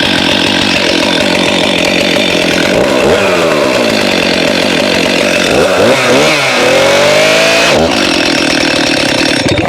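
Stihl MS 261 two-stroke chainsaw running loud at high revs as it is driven into cut-protective chainsaw pants over a log. Its pitch sags and climbs again several times in the middle, and it cuts off at the end. The pants' fibres stop the chain almost immediately.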